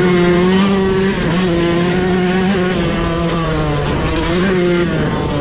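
Yamaha dirt bike engine running at fairly steady revs under way, with a brief dip in pitch about four and a half seconds in.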